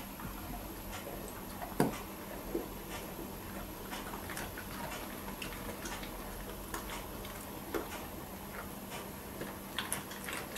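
Alaskan Malamute chewing food slowly, small bite by small bite: irregular wet mouth clicks and smacks, about one or two a second, with one louder click about two seconds in.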